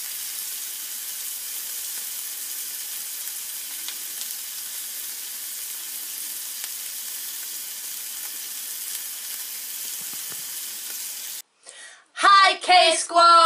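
Steady sizzling hiss with faint scattered crackles, like food frying in a pan, cutting off abruptly near the end. Two voices then call out loudly.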